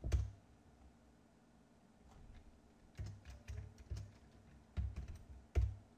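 Computer keyboard keystrokes, a handful of separate taps: one at the start, about four in quick succession around three to four seconds in, and two more near the end.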